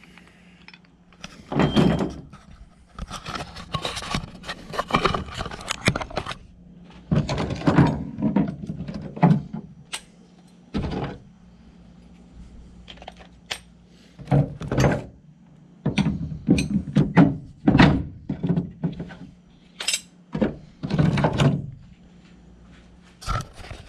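Hand tools and leftover install parts being picked up and put away: a run of irregular knocks, clunks and rustling, over a faint steady low hum.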